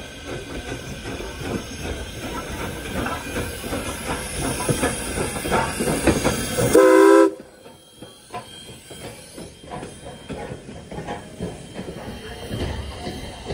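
Steam locomotive No. 89, a 2-6-0 Mogul, approaching and passing close by. Its running and rail noise builds to one short, loud whistle blast about seven seconds in. The sound then drops suddenly to a quieter clatter of wheels on the rails.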